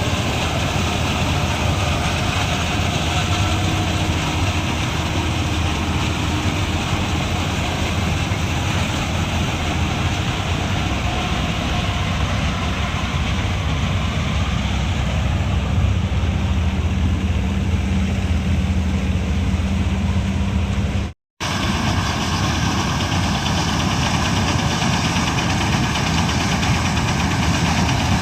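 Combine harvester running steadily while cutting wheat, a continuous loud engine drone. It breaks off for an instant about twenty seconds in and resumes.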